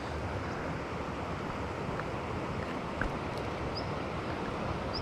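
Steady rushing wind noise buffeting the microphone, with a few faint clicks and a couple of short high chirps near the end.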